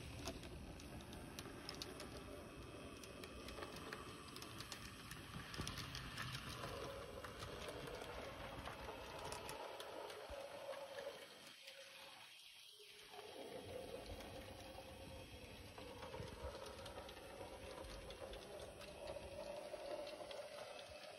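Heljan OO9 model locomotive Lyn running along the layout track: a faint steady electric motor whine with scattered light clicks of the wheels on the rails. The sound dips briefly about halfway through.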